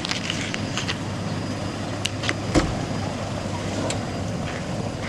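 A minivan's engine idling steadily, with a few short knocks and clicks as people climb in through the open sliding door; the heaviest thump comes about two and a half seconds in.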